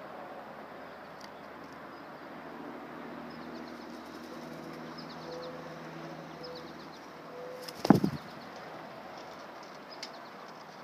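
A bird's wings flapping in a short, loud burst of a few quick strokes about eight seconds in, over a steady outdoor background hiss with a few faint high bird chirps earlier on.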